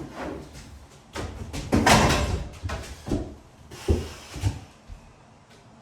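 Handling noises from hanging wallpaper: a rustling scrape about two seconds in, then a few dull knocks.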